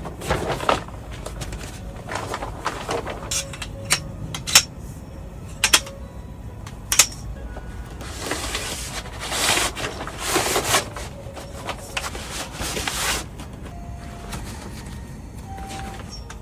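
Background music, with scattered sharp clicks and knocks and a few seconds of rustling about halfway through.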